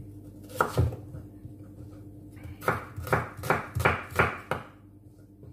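Kitchen knife chopping small onions on a wooden cutting board: one cut under a second in, then a quick run of about seven chops, about four a second, from around halfway through.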